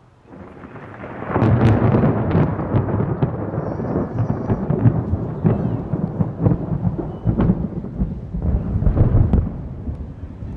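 Thunder rolling overhead: a rumble builds within the first second and a half, then goes on with repeated cracks for most of ten seconds before easing near the end.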